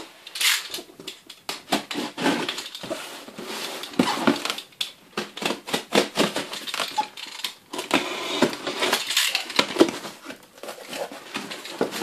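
Cardboard parcel being opened: a utility knife slitting the packing tape and the box flaps pulled open, giving a run of irregular rustles, scrapes and sharp knocks of cardboard.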